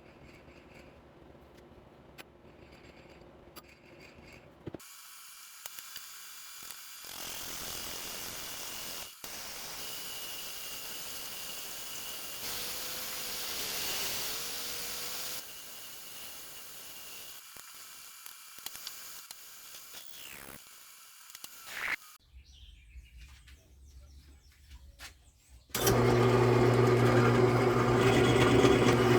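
Workshop sounds in separate short takes: faint handling ticks, then a long stretch of steady hiss with faint whines. About 26 seconds in, an electric machine tool starts suddenly and runs with a steady, loud hum.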